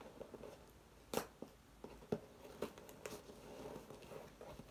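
Cardboard package being worked open by hand: faint rustling of card and packing, with a handful of short, sharp clicks and snaps.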